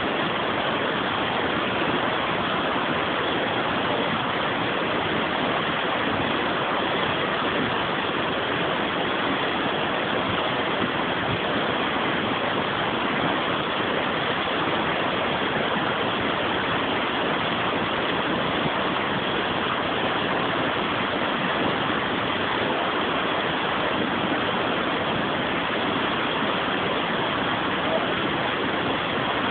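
Water pouring over a river weir: a steady, unbroken rush of white water.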